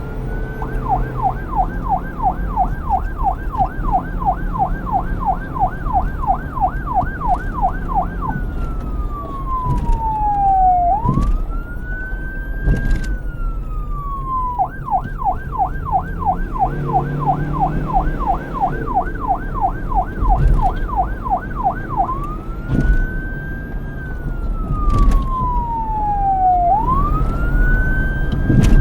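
Electronic police siren alternating between a slow wail, rising and falling between high and low pitch, and a fast yelp of about three sweeps a second, over a low rumble.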